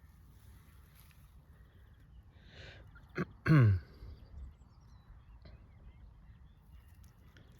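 A man's short, low grunt or throat-clearing sound, falling in pitch, about three and a half seconds in, just after a breath and a small click.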